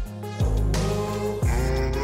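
Background music from a rap track, with deep bass notes that slide down in pitch every second or so under a melody.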